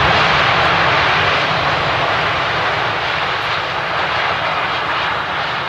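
Airbus A380 jet engines running at high power along a wet runway: a loud, steady rush that slowly fades.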